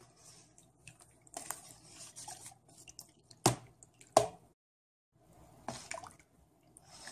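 A big spoon mashing soaked tamarind pulp in water: irregular wet squelching and dripping, with two sharp knocks about halfway through.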